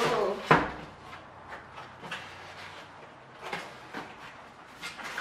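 Cardboard shipping box being handled and opened by hand: one sharp knock about half a second in, then scattered soft taps and scrapes of the cardboard flaps.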